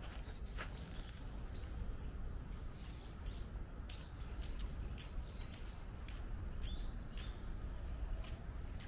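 Birds giving short chirps every second or two over a steady low rumble of outdoor background noise, with scattered light clicks.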